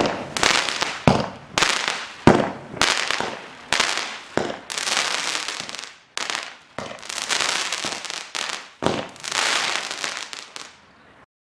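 A 96-shot, 200 gram consumer firework cake firing: a string of sharp reports, about one a second at first, each followed by a long noisy tail. It stops a little before the end.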